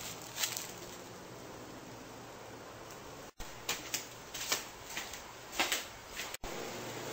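Irregular crackling clicks and rustles of a handheld camera being moved about, over a low hiss; the sound cuts out abruptly twice, about a third and near the end, at edits.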